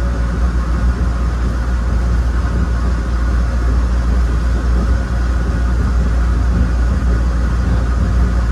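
A 1993 ABB N5 light-rail car running steadily along the track, with a constant low rumble.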